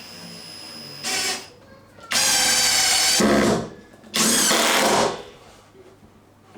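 Power drill running in bursts: a short burst about a second in, then two longer runs of about a second and a half and a second, the last rising in pitch as the motor speeds up.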